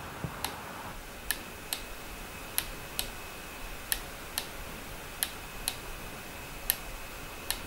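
Sharp computer mouse clicks, mostly in pairs a fraction of a second apart that repeat about every second, as a button is pressed and released to drag and turn a 3D model on screen. A faint steady high tone sits underneath.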